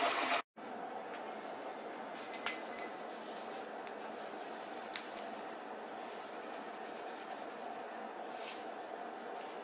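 Tap water pouring into a metal stockpot, cut off sharply about half a second in. Then a steady faint hiss with a few light clicks.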